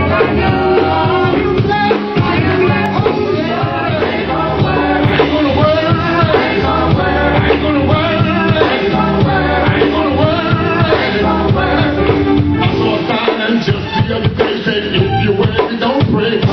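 Gospel group singing over a full band with drums.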